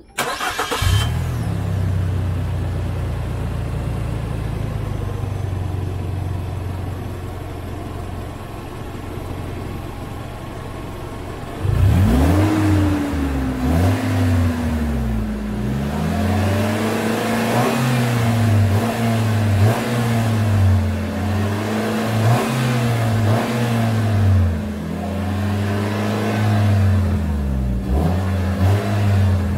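Nissan NV350 Caravan's QR20DE 2.0-litre four-cylinder petrol engine, heard through a Fujitsubo Authorize R muffler and a Genb Super Catalyzer sports catalytic converter. It idles steadily, then from about twelve seconds in it is revved repeatedly in short blips.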